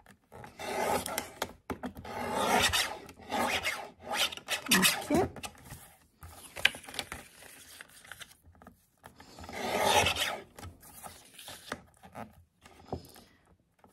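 Fiskars sliding-blade paper trimmer cutting card: the blade carriage is drawn along its rail in several strokes about a second each, with the card shifted on the trimmer bed and a few small clicks between strokes.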